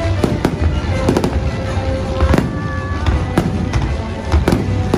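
Fireworks going off in a rapid, irregular string of bangs and crackles, over the show's loud soundtrack music.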